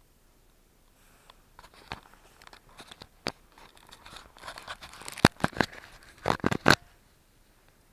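Handling noise: irregular clicks, rustles and knocks that grow busier, with the sharpest knocks about five seconds in and a quick cluster near the end. No motors are running.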